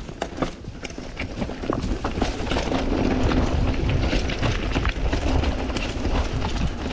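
Mountain bike riding fast down a rough dirt trail: tyres rolling over rock and dirt, with many sharp clicks and rattles from the bike jolting over bumps, under a heavy low rumble.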